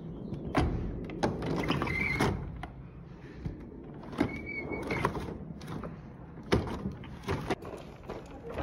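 Interlocking plastic gears on a hands-on gear wall turned by hand, running with a whirring rattle in two spells of about a second each, with scattered clicks and knocks between.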